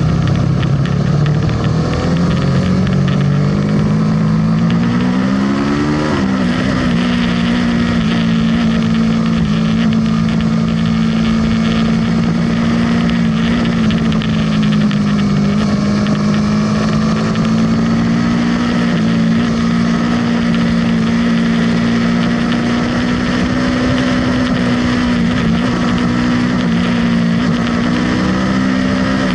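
Aprilia sportbike engine heard from the rider's seat: it rises in pitch under hard acceleration for about six seconds, drops once at an upshift, then holds steady high revs. Constant wind rush over the bike.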